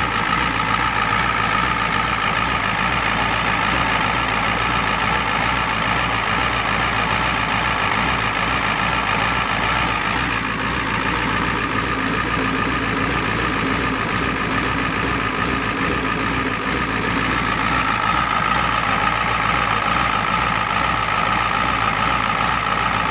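1993 Ford F-250's 7.3-litre IDI non-turbo V8 diesel idling steadily. Its owner says the injection pump and fuel pump are going out on it.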